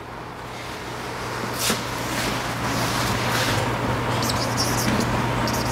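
Whiteboard eraser wiping across the board in several strokes, then a felt marker ticking and squeaking on the whiteboard as writing starts about four seconds in, over a steady low hum.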